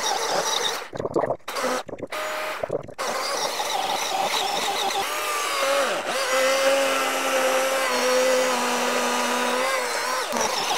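Milwaukee M18 battery chainsaw cutting through a thick log: the motor whines and the chain rasps through the wood. The sound drops off briefly three times in the first few seconds, then settles into a steadier pitched whine under load from about five seconds in, stopping shortly before the end.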